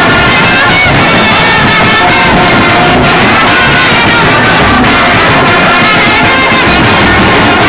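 Ghanaian street brass band playing loud: trombones and trumpets holding a melody over bass drum and side drum.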